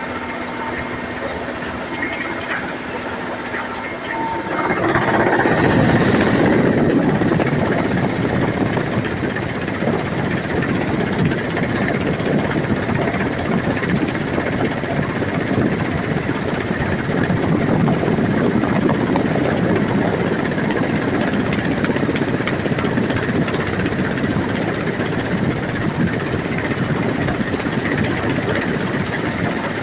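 Helicopter cabin noise in flight: a steady engine and rotor drone with a held whine. About four seconds in it turns much louder into a dense rush of wind and rotor noise, which then stays steady.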